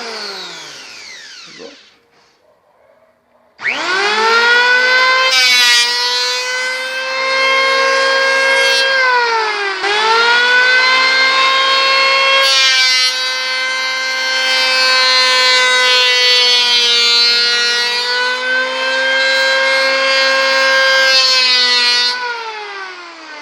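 Schulz electric hand planer motor whining. It winds down, stops briefly, then starts up again and runs while cutting the bottom edge of a wooden door, its pitch sagging for a moment under load about ten seconds in. It winds down again near the end.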